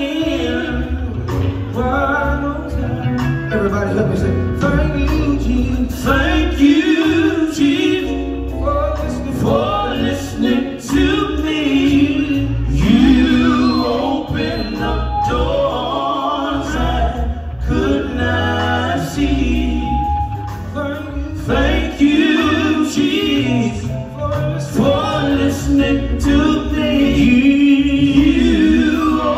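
Two male gospel singers singing live into microphones, backed by a band with drums.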